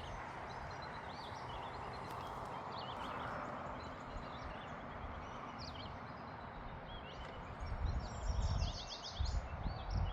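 Songbirds chirping at dawn over a steady outdoor background hiss, with a quick rapid trill near the end. Low thumps come in during the last couple of seconds, like footsteps on a trail.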